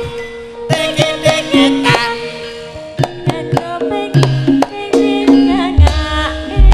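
Javanese gamelan (karawitan) playing in Sragenan style: sharp kendang hand-drum strokes over ringing metallophone tones, with a wavering melody line above. Deep low tones come in near the end.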